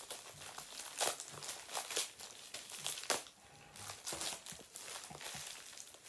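Packaging crinkling and rustling in irregular crackles as a Funko Soda figure is worked out of its tightly packed can, with sharper crackles about one, two and three seconds in and a short lull just after the third.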